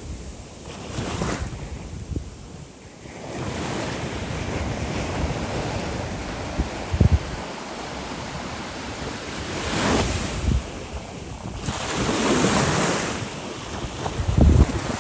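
Sea waves breaking and washing up the shore, swelling louder several times, with wind buffeting the microphone in a few short low thumps.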